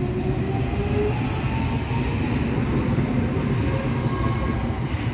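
Articulated electric tram moving past close by: a steady rumble of wheels on the rails, with a faint electric whine rising in pitch over the first few seconds as it picks up speed.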